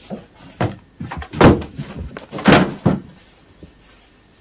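Footsteps across a room and a run of knocks, with two heavy thumps about a second apart near the middle, as a boy crosses a bedroom and drops onto his bed.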